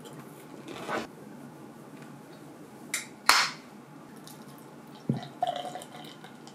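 A beer can's pull tab cracked open with a click and a short hiss about three seconds in, then a knock and beer poured from the can into a glass mug near the end.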